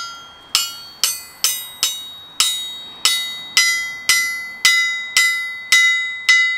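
A 378 lb 1860s Wilkinson wrought anvil struck about twice a second with a small 4-ounce hammer in a ring test, each tap giving a clear bell-like ring that dies away before the next. The ring shifts to a higher note about halfway through, and the hammer bounces off freely, the mark of a sound, lively anvil.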